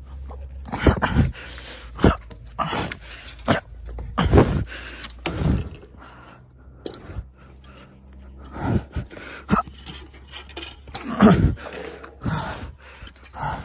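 A person breathing hard in irregular, heavy gasping breaths, about one every second, over a steady low rumble.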